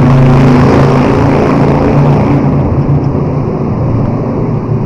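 Motorcycle engines and exhausts running very loud inside a road tunnel, a steady droning note that eases slightly toward the end.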